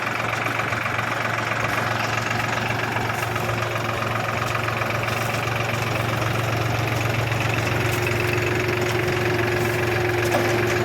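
Tractor engine running steadily while driving a potato harvesting machine. A steady whine comes in about eight seconds in.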